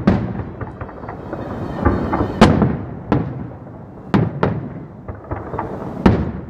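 Aerial firework shells bursting overhead: about half a dozen sharp booms, each trailing off in a rumbling echo, the loudest about two and a half seconds in.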